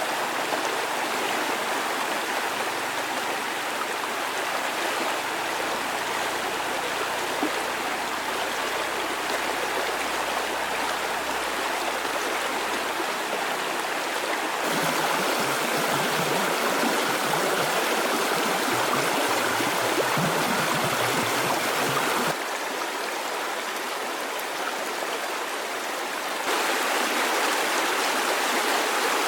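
Flowing water rushing steadily, like a stream. Its loudness and tone change abruptly three times, about halfway through, then twice more near the end.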